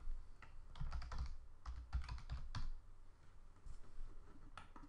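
Typing on a computer keyboard: a quick run of keystrokes spelling out a word, starting about a second in and lasting about two seconds, with a few more clicks near the end.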